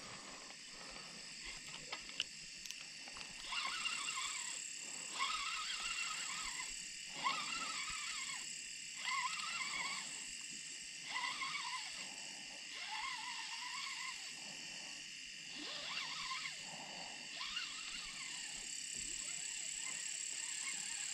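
Frogs calling: a faint series of croaking calls repeating every second or two, over a steady high-pitched night chorus.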